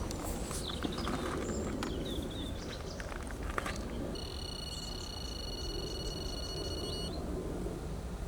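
Outdoor ambience with a steady low rumble of wind and short bird chirps in the first half, then a steady high-pitched tone held for about three seconds before it cuts off.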